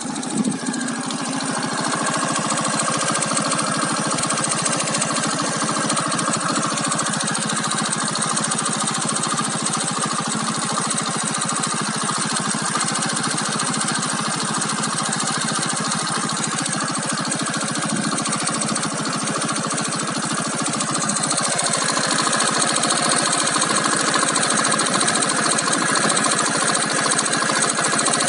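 Keeway Cityblade 125cc scooter's single-cylinder engine running warm at a steady idle with a rattling, ticking noise. It gets a little louder after about 22 seconds.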